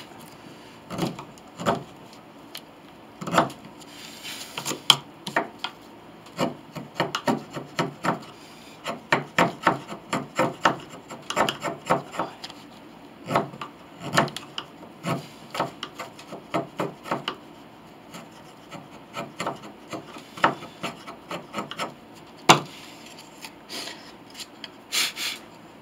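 Narrow quarter-inch wood chisel paring hard maple pinblock stock at an angle by hand: many short scraping cuts in uneven bursts, with a couple of sharper clicks near the end.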